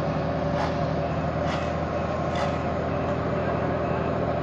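Heavy road-works vehicle engine running steadily, with faint knocks about once a second in the first half.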